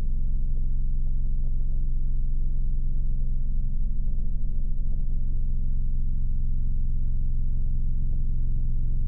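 Steady low mechanical drone, a motor or engine running at constant speed, made of several deep tones with almost nothing higher.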